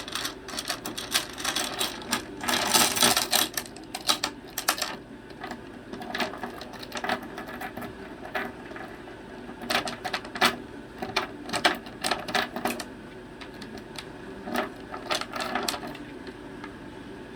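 Small metal door lock and sliding bolt clicking and rattling in irregular bursts as a cockatoo works it with its beak, with a longer scraping rattle about two to three seconds in.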